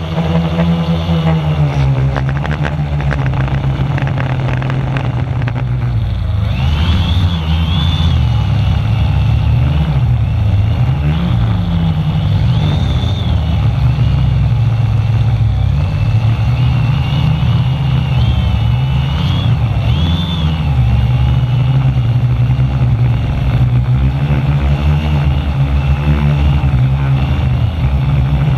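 Brushless motors and propellers of a 450-size quadcopter, heard from a camera on its frame, humming and whining with the pitch rising and falling over and over as the motors speed up and slow down to hold position against strong wind gusts. Wind rushes across the microphone throughout.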